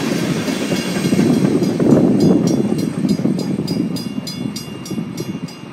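Freight train tank cars rumbling past on the rails, the sound fading as the end of the train goes by. Meanwhile a grade-crossing warning bell rings about three times a second and stands out more clearly as the rumble dies away.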